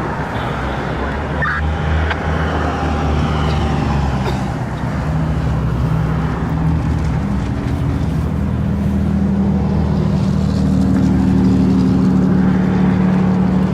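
A motor vehicle's engine running close by, a steady low rumble. Its pitch steps up about halfway through and it grows louder toward the end.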